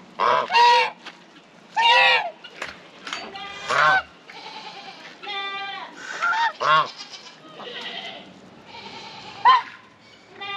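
Domestic geese honking, a series of loud separate calls every second or two.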